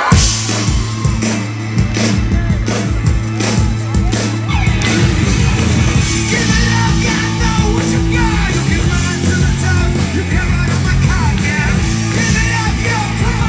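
Live rock band starting a song with a sudden loud hit, then drums and bass guitar driving on; a singer's voice comes in about halfway through.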